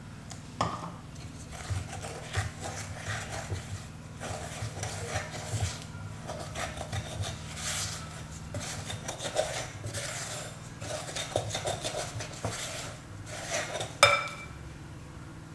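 Semolina and water being mixed into a dough in a bowl: irregular scraping and small clinks against the bowl, with one sharp ringing clink near the end.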